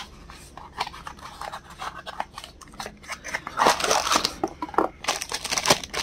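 Packaging being handled: light rustles and taps of cardboard, then louder crinkling of a clear plastic bag from about three and a half seconds in.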